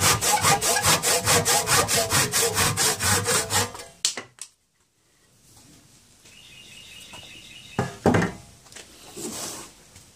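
A hand saw cutting through a wooden hoe handle held in a vise, in quick, even back-and-forth strokes that stop about four seconds in as the cut finishes. A couple of light knocks follow near the end.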